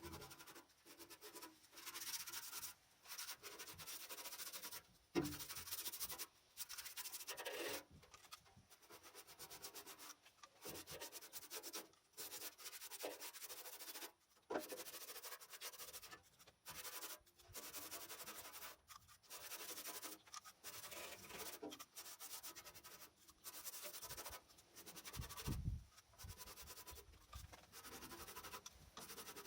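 Abrasive hand rubbing on metal, stroke after stroke with short pauses between them, as in sanding rust off the bodywork of a Simson Schwalbe moped.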